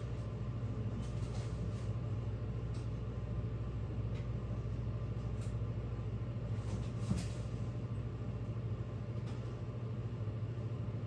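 A steady low hum, with a few faint light clicks and one slightly louder knock about seven seconds in.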